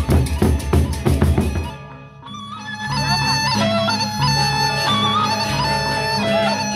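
Gendang beleq, the large Sasak barrel drums, beat rapidly for about the first two seconds and then stop. After a short lull a high, wavering melody with sliding notes starts over a low drone-like accompaniment.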